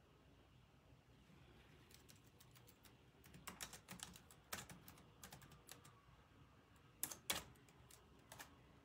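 Faint, irregular clicks and taps, starting about two seconds in, with two louder clicks near the end.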